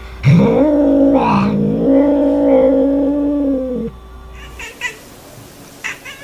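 Domestic cat yowling: one long drawn-out call of about three and a half seconds that dips in pitch about a second in, then holds steady before stopping. After it come a few faint short clicks.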